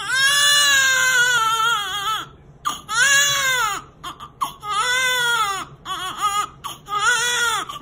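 Newborn baby, just delivered, crying in a run of loud wails, each rising and falling in pitch and lasting about a second or two, with short breaths between.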